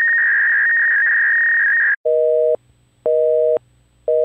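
A steady high electronic tone with a slight warble cuts off about two seconds in. A telephone busy signal follows: two low tones sounding together, beeping on and off about once a second in the North American busy-tone pattern, twice and then starting a third time near the end.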